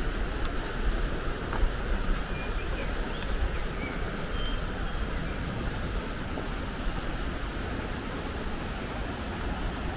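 Steady rushing of a mountain river: an even, wide noise with a heavy low rumble underneath.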